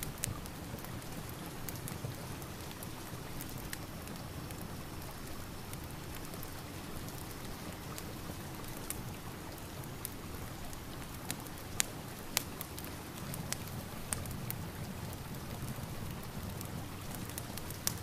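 Rain and fireplace ambience: a steady hiss of rain with scattered sharp crackles and pops, two louder pops about two-thirds of the way through.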